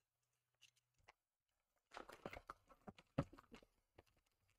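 Small clicks and rustles of hands handling small model parts and tools. A quick cluster of clicks begins about two seconds in, with the sharpest click a little after three seconds.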